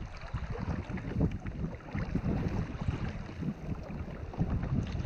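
Gusty wind buffeting the microphone of a kayak-mounted camera on open water, giving an uneven low rumble.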